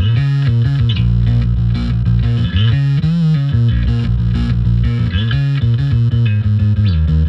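Background music: distorted electric guitar and bass guitar playing a heavy rock riff.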